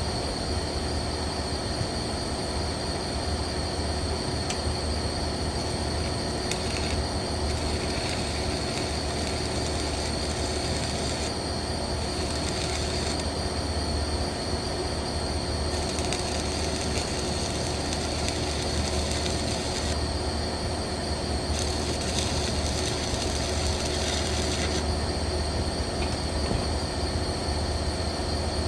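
Welding on a 1-inch steam pipe: a steady hiss over a low machine hum. The high hiss grows and fades several times.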